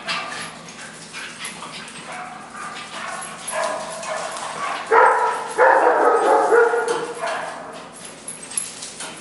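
Puppies yipping and barking while they play-fight, with a louder run of yaps about five seconds in that lasts a couple of seconds.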